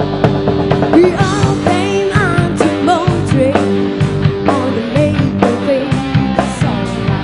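Live rock band playing electric guitars, bass and a drum kit, with a female singer's voice coming in about a second in.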